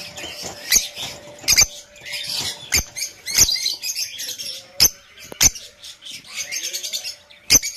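Yellow Fischer's lovebirds chattering in shrill, squeaky high calls, broken by sharp ticks about once a second.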